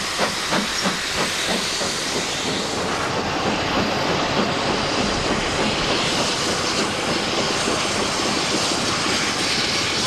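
Steam locomotive working, with exhaust beats at about three a second that fade within the first couple of seconds into a steady rushing noise of steam and running.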